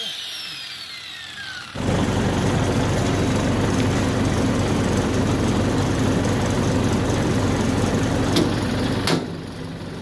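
Angle grinder spinning down with a falling whine after being switched off, cut short at about a second and a half. A loud, steady mechanical running noise follows, like an engine or machine running nearby, with a couple of sharp metal knocks near the end.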